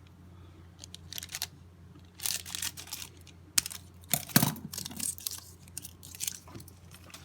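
Foil wrapper of a trading-card pack crinkling and tearing open, with the cards inside being handled, in irregular rustles and snaps; the sharpest one comes about four seconds in.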